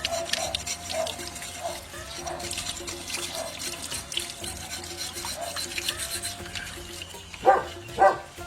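Water splashing and sloshing as lamb hooves are scrubbed clean in water, with two short loud bursts near the end.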